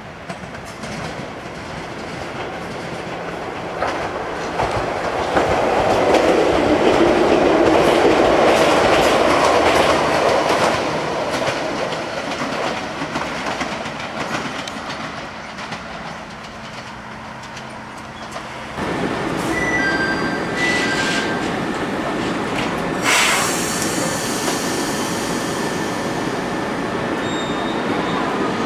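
Ichibata Electric Railway 3000 series electric train running by on curving track, its wheels clattering over the rail joints, the noise building to a peak and then easing away. After a sudden change about two-thirds of the way through, a steady running noise from the train close by, with a sharp clack a few seconds later.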